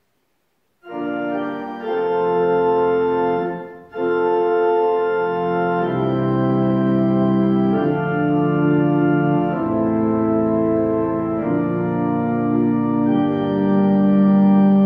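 Organ playing slow, sustained chords that change every second or two, starting about a second in, with a brief break near four seconds.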